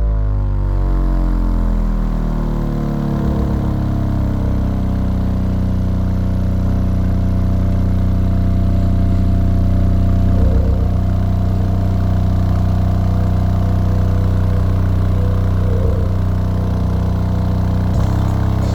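Two DB Audio Xtinct 12-inch subwoofers playing bass-heavy music loud: a tone slides down in pitch over the first few seconds, then settles into a steady, deep bass drone.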